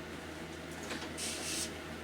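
Mac Allister SOS300 300 W random orbital sander running steadily with 80 grit paper on a sawn wooden board: an even low hum with a brief hiss a little past the middle.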